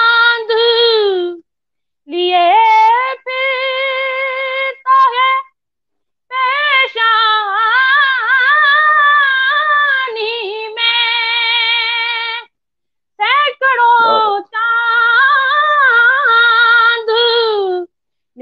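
A boy's high voice singing an Urdu naat unaccompanied, in about four long phrases with held, wavering notes and ornamented runs, separated by short breaths.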